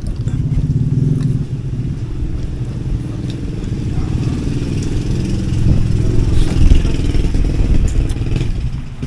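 Motorcycle engine running, a low rumble that grows louder toward the middle and drops away near the end.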